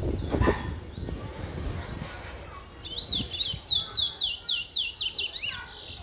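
Caged twa-twa (large-billed seed finch) singing: a fast run of clear, descending whistled notes, four or five a second, starting about three seconds in. Before the song, a low rumbling noise fills the first two seconds, loudest at the start.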